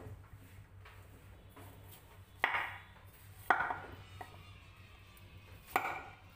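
Kitchen knife chopping through a chayote onto a wooden cutting board: three separate sharp chops, the first about two and a half seconds in.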